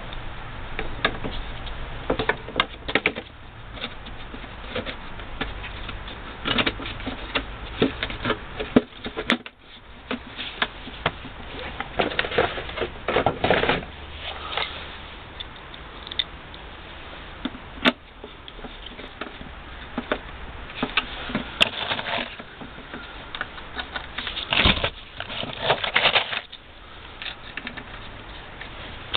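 Irregular plastic clicks, knocks and scrapes as a blower motor is seated into the plastic rear heater housing of a VW T4 van, then a screwdriver turning its fixing screws.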